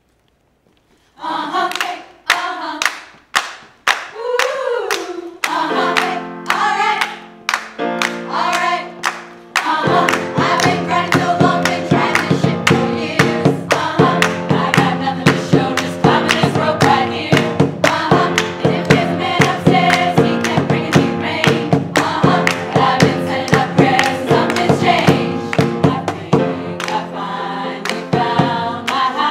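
Women's choir singing an upbeat pop arrangement over sharp rhythmic percussion hits. It starts about a second in, held low chords join around six seconds, and the sound grows fuller from about ten seconds.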